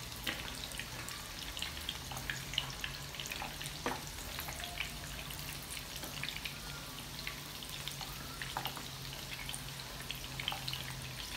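Batter-coated mutton chops deep-frying in hot oil: a steady sizzle full of small crackles. A few light knocks of a slotted spoon against the pan as the pieces are moved and turned.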